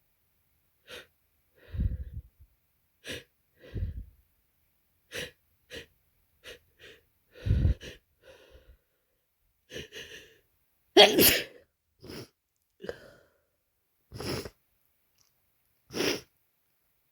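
A person with a heavy head cold sniffling and sneezing, about fifteen short bursts in all with pauses between them. The loudest is a hard sneeze about eleven seconds in.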